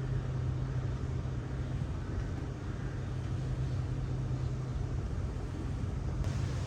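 A steady low mechanical hum with a constant hiss over it, unchanging and with no distinct events.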